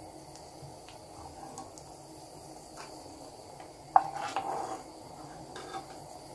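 A spoon knocks sharply against a frying pan about four seconds in and stirs briefly through foaming hot ghee with a short scraping clatter, with a few lighter taps after. A faint sizzle of the hot ghee runs underneath.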